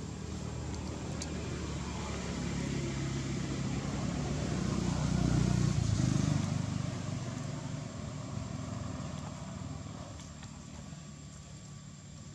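A motor vehicle passing by: its engine hum swells to its loudest about five to six seconds in, then fades away.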